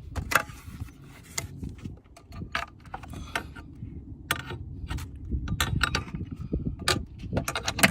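Scattered sharp clicks, taps and light rattles of hard parts being handled under a car's dashboard, over a low rumble, with a quick cluster of clicks near the end.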